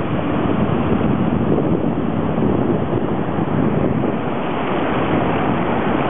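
Ocean surf breaking and washing up a sandy beach as a steady rush, with wind rumbling on the microphone.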